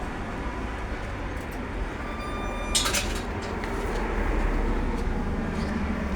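Street background noise with a steady low traffic rumble. About two seconds in, a steady high tone sounds for under a second and ends in a short sharp burst of noise.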